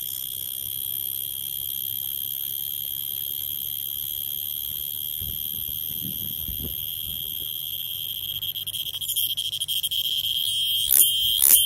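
Cicada singing: a loud, steady, high-pitched buzz that turns choppy and, near the end, breaks into a rhythmic pulsing of about two pulses a second.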